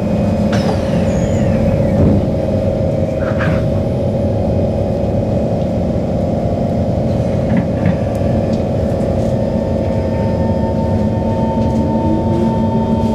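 Singapore MRT train closing its doors with a knock in the first few seconds, then pulling out of the station: a steady electric hum over the running rumble, with a rising motor whine near the end as it accelerates.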